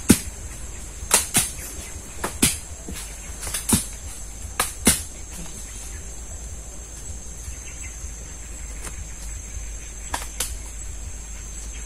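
Santol fruits falling from the tree and hitting the ground, about a dozen sharp thuds, mostly in pairs, in the first five seconds and two more near the end. Insects drone steadily underneath.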